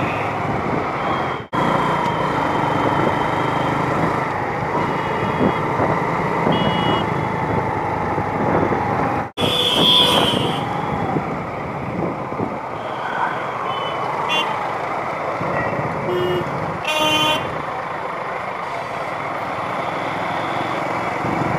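Busy road traffic heard from a moving motorbike: steady engine and road noise with several short horn toots, the strongest about ten seconds in. The sound drops out suddenly for an instant twice, about a second and a half in and about nine seconds in.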